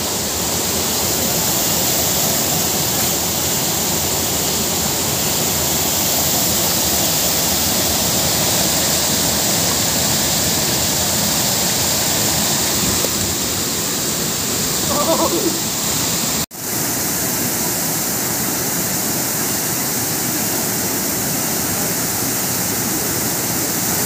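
Waterfall pouring over rock ledges into a pool: a steady, dense rush of falling water.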